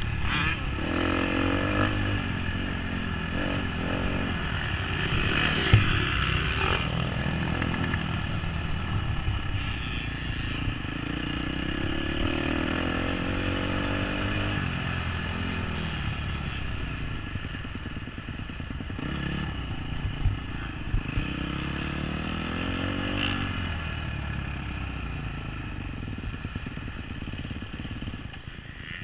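2013 KTM 250 SX-F's four-stroke single-cylinder engine revving up and down over and over as the bike is ridden hard around a motocross track, with a few sharp knocks along the way. The engine eases off near the end as the bike rolls off the track.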